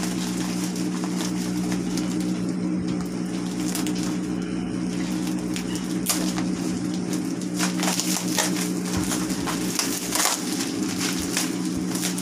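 Cardboard and plastic packaging being torn open and handled: irregular crackling, rustling and tearing, busiest in the second half. Under it runs a steady low hum.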